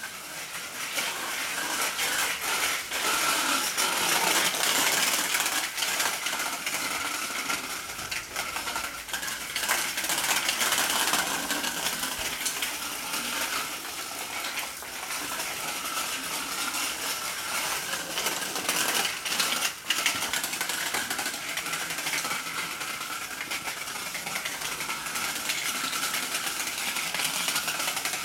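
Child's small bicycle with training wheels rattling and clattering as it rolls over tiled and paved ground, with many small metallic-sounding clicks.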